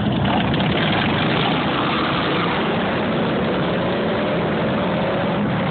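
Several touring motorcycles running together at low speed in a riding formation: a steady low engine rumble, with one engine's pitch rising slowly through the middle.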